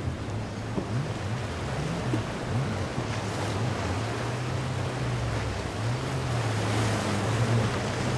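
Surf breaking and wind buffeting the microphone, over the low drone of a dive boat's inboard engines, whose pitch keeps wavering up and down as the boat pitches through the waves.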